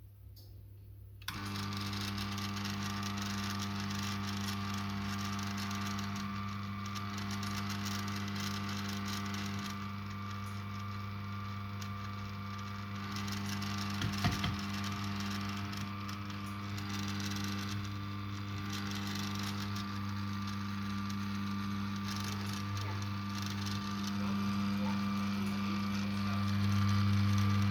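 Eureka Specialità espresso grinder starting about a second in and running steadily with a humming motor tone and a rattle, the rattling the owner is documenting as a fault; a couple of sharp clicks about halfway, and it runs louder near the end.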